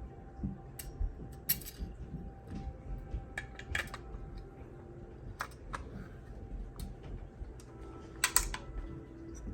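Irregular small clicks and clinks of metal and plastic parts being handled and slid into place. These are the charging handle, bolt and guide springs of a G&G SR-25 airsoft rifle being fitted back together, with the loudest cluster of clicks about eight seconds in.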